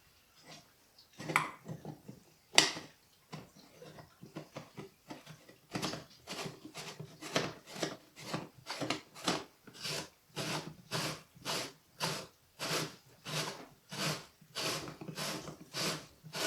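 Sausage stuffer being worked by hand, its metal parts rasping in a steady rhythm of about two strokes a second, after a few scattered knocks with one sharp knock about two and a half seconds in.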